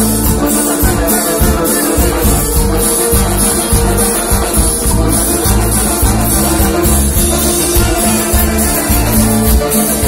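Cumbia band playing live and loud over a PA, an instrumental passage with a steady dance beat and shaker-like percussion.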